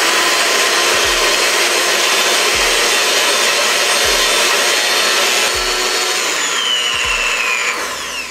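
Electric hand mixer running steadily, its beaters churning butter and sugar in a glass bowl to cream them. Near the end the motor's whine falls in pitch and the sound fades.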